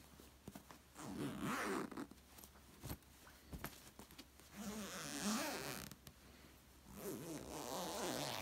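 Zipper on a foam-filled pillow's velour cover pulled along in three runs of about a second each, with fabric handling and small clicks between.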